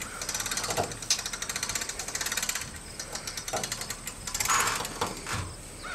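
Ratchet of a boat trailer's hand winch clicking rapidly as it is worked, with metallic rattles from the trailer.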